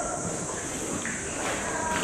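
Faint voices of the people on the boat under a steady high hiss.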